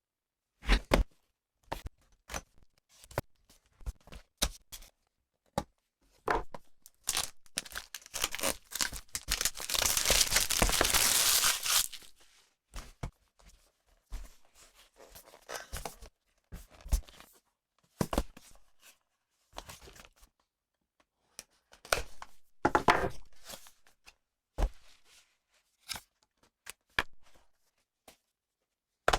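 Handling noise picked up by a clip-on wireless microphone worn on a shirt: scattered clicks, taps and fabric rustles, with a long stretch of loud scratchy rubbing from about seven to twelve seconds in and a shorter one later.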